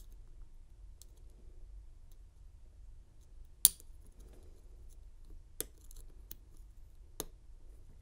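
Small, sharp metallic clicks of a lock pick and tension wrench working the pin stacks of an American 747 padlock, a handful of separate clicks with the loudest a few seconds in.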